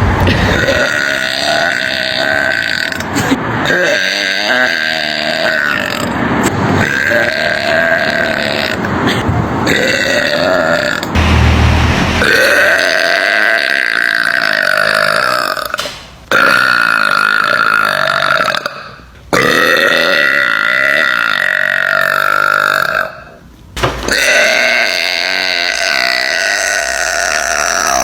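A woman's very long, loud burps, several in a row, each drawn out for several seconds with only short breaks between them.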